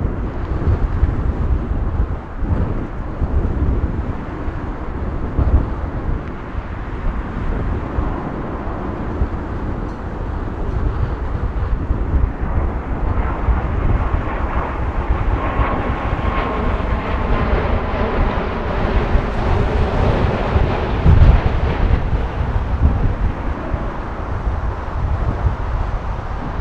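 Boeing 777-200ER's Rolls-Royce Trent 800 turbofans on final approach: a jet rumble with a faint whine that builds to its loudest a little past halfway as the airliner passes close and low, then eases as it heads down to the runway. Wind buffets the microphone throughout.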